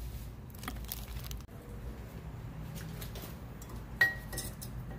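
Metal clinks of a new Bosch brake pad being handled in its caliper bracket, with one sharp clink that rings briefly about four seconds in.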